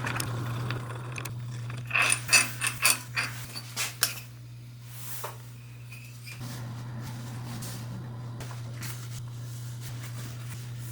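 A quick run of sharp metallic clicks and clinks about two seconds in, lasting about two seconds, from hand tools and metal parts as the air compressor's pump head is taken apart, over a steady low hum.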